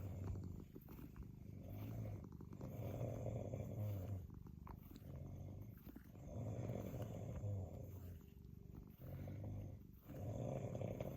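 A cat purring steadily, in cycles of about one and a half to two seconds, each broken by a short pause for breath.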